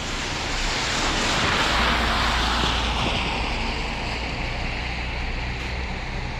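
A vehicle passing on a wet, slushy street: tyre hiss swells, then slowly fades as its pitch slides down, with a low engine hum in the middle.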